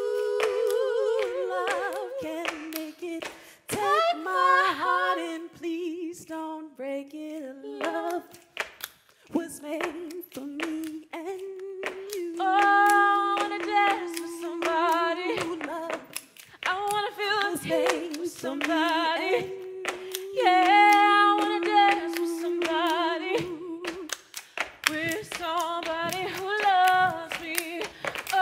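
A woman singing a cappella, long held and sliding notes, with sharp hand claps and stamps beating out the rhythm and no instruments.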